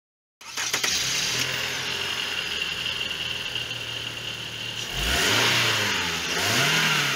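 Car engine running steadily, then revved up twice from about five seconds in.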